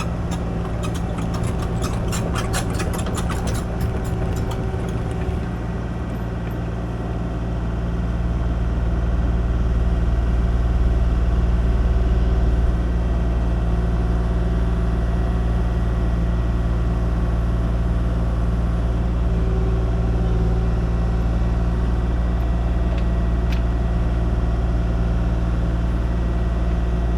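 Kubota KX040 mini excavator's diesel engine running steadily. A quick run of clicks and clanks comes in the first few seconds, and the engine gets louder about eight seconds in, as if working under load, then holds.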